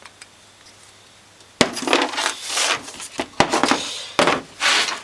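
Small metal parts of a dismantled starter solenoid being handled and set down on a workbench. A sharp click comes about one and a half seconds in, then a run of scraping, rubbing and knocking clatters.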